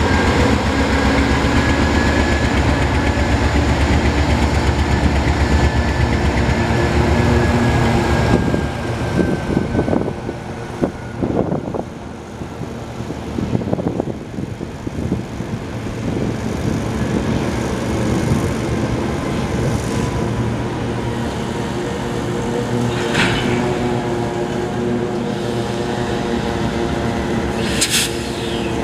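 GE C44-9W diesel locomotive idling up close, its engine running with a high whine over it. About eight seconds in the sound drops and turns uneven, then settles into the same locomotive idling at a distance. Two short high chirps come near the end.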